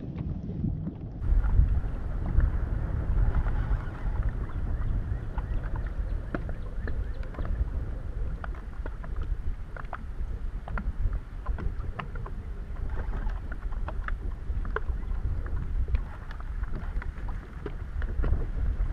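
Gusty wind rumbling on the microphone over small waves lapping against a bass boat's hull, with irregular light ticks and slaps. It gets louder about a second in.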